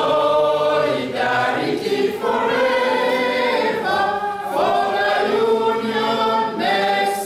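A group of men and women singing together in long held phrases.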